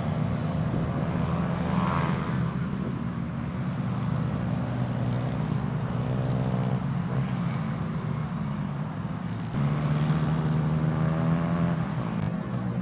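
Small racing kart engines running on track, a steady buzzing drone with engine notes rising and falling as the karts speed up and slow down; it gets louder about nine and a half seconds in.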